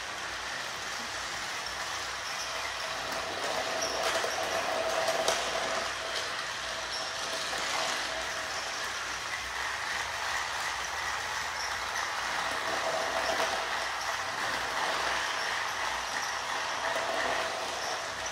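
Several small battery-powered toy trains running on plastic track: a steady whir of little electric motors and wheels, with a few light clicks and knocks.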